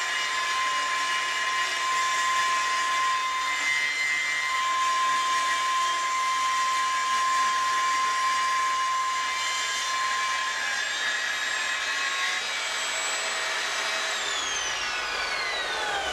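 Evolution Rage table saw running with a steady whine as its blade cuts a diagonal through plywood pushed on a sled jig. About fourteen seconds in the whine starts to fall in pitch as the motor spins down.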